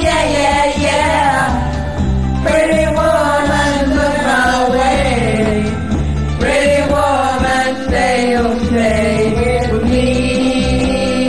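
Karaoke singing: a voice sings long, held phrases over a backing track with a steady bass line.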